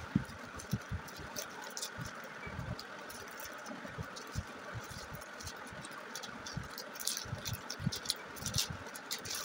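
Thin plastic packets crinkling and rustling as they are handled, in short irregular crackles, with scattered soft low knocks from handling.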